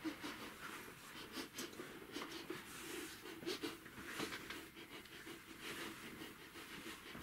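Dog puppet sniffing at another dog puppet, voiced by the puppeteer as a run of short, irregular sniffs and snuffles, with soft rustling of the plush puppets rubbing together.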